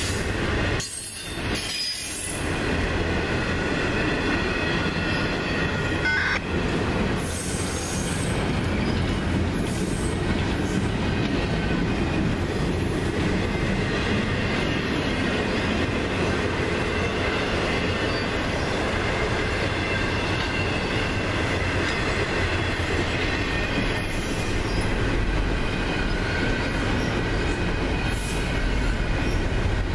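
Double-stack intermodal freight train's container well cars rolling past at speed: steady rumble of steel wheels on the rails, with faint high steady wheel-squeal tones running through it. The sound dips briefly about a second in.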